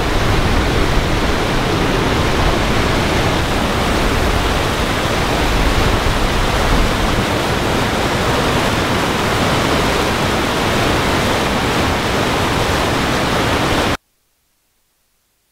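Whitewater rapids of a mountain river rushing over rocks: a loud, steady rush of water that cuts off suddenly near the end.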